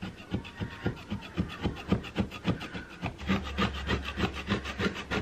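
Fast back-and-forth hand scraping on a wooden stair, about four strokes a second, working off old paint softened by paint stripper.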